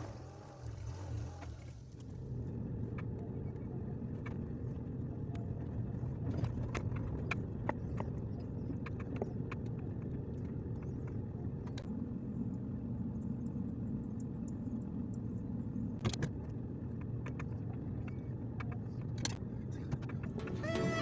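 A motor vehicle on the move: a steady low rumble with scattered small rattles and clicks.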